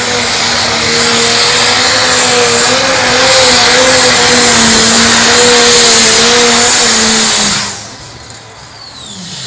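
Pulling tractor's engine running at full power down the track, a loud steady drone with a pitched whine over dense exhaust noise. The sound drops away sharply about three-quarters of the way through as the pull ends.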